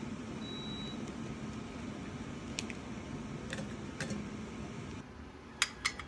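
Pieces of hardened beeswax snapping off a cake and dropping into a steel pouring pitcher, a few light clicks over a steady low hum, with a brief high beep near the start. Near the end comes a metal ring set down into a steel saucepan, two sharp clinks.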